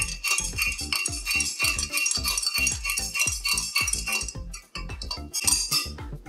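A metal spoon stirring sugar into hot tea in a glass mason jar, clinking and rattling against the glass, and stopping about four seconds in. Background music with a steady beat plays under it.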